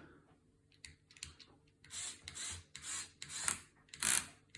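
Lego fire truck ladder mechanism, an L motor driving a worm gear, clicking repeatedly about every half second, louder toward the end. The clicking is a problem in the mechanism still to be sorted out.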